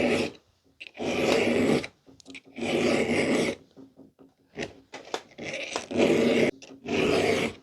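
A hand file rasping across a chainsaw chain's cutter teeth during sharpening: about six slow, even strokes, each lasting around a second, with short pauses between them.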